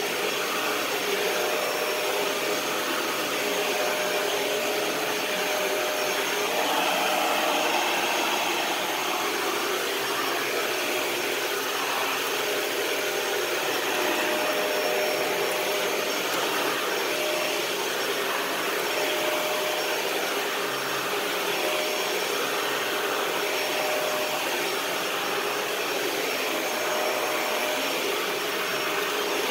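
Dyson DC41 Animal Complete upright vacuum cleaner running steadily: a rush of air with a steady whine.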